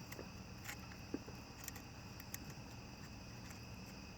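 Faint, scattered light clicks as a chainsaw's chain and bar are handled during fitting, over a steady high insect drone.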